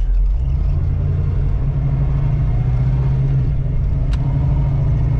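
1985 Oldsmobile Cutlass Supreme's engine running steadily while the car is driven, on a newly fitted carburetor, with a low rumble. A brief sharp click sounds about four seconds in.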